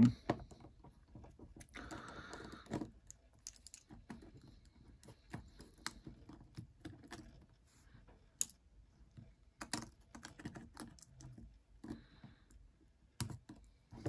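Faint, irregular small clicks and taps of a precision screwdriver and small metal and plastic parts as an opened iPod is being taken apart, with a short rubbing sound about two seconds in.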